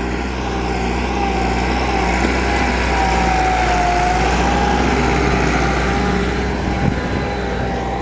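Massey Ferguson 375 tractor's four-cylinder diesel engine running steadily under load as it pulls a spring-tine cultivator through dry soil, with a held whine that dips slightly in pitch midway.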